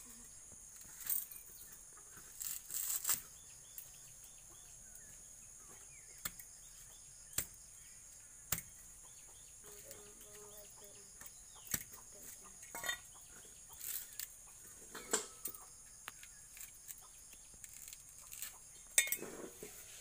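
Dry coconut husk being torn apart by hand: scattered rustles and sharp snaps of fibre giving way, a few louder ones near the start and near the end.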